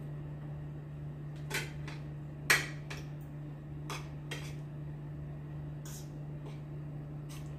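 Spoon and fork clinking against a plate and bowl while eating, several scattered clinks with the sharpest about two and a half seconds in. A steady low hum runs underneath.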